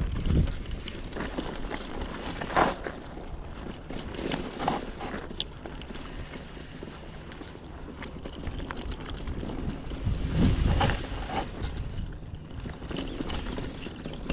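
Mountain bike rolling down a rough, rocky trail: irregular clattering knocks and rattles over a steady rolling noise, with a louder low rumble about ten seconds in.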